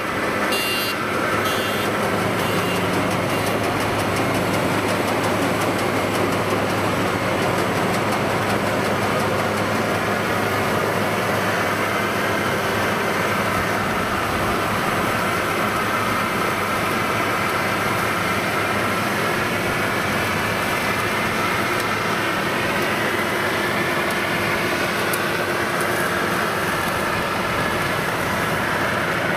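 FMWorld WD102PRO crawler rice combine harvester running steadily under load as it cuts and threshes standing rice: a continuous engine drone mixed with the noise of the working machinery.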